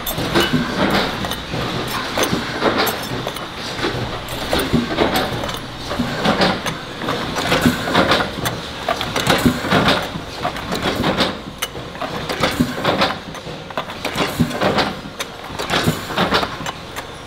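Oil filter assembly line machinery running, with frequent irregular metallic clanks and clicks as steel filter canisters and parts move through conveyors and a rotary press table.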